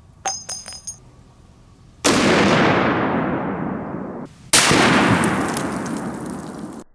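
A few light metallic clicks, then the loud report of a Serbu RN50 .50 BMG rifle firing, trailing off in a long echo. A second equally loud report with the same long echo follows about two and a half seconds later.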